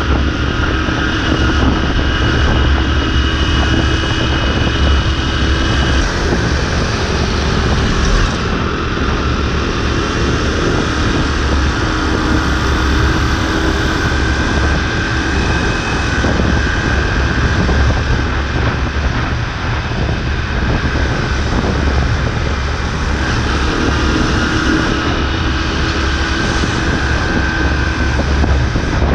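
Motorbike engine running steadily at cruising speed, with wind rushing over the mounted camera's microphone.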